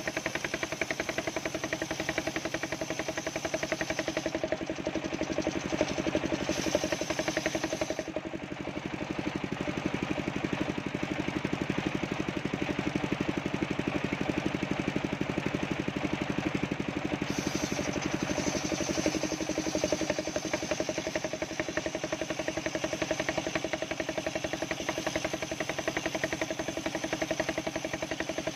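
Homemade engine-driven circular sawmill ripping a coconut log lengthwise: the engine runs steadily with a fast, even knocking beat under the sound of the blade cutting the wood. The higher cutting sound fades for several seconds in the middle, then returns.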